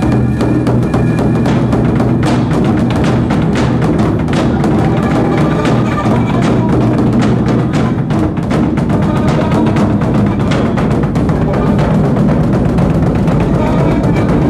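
Live percussion ensemble playing: a very large barrel drum beaten rapidly with sticks, over a dense, continuous rhythm of other drums.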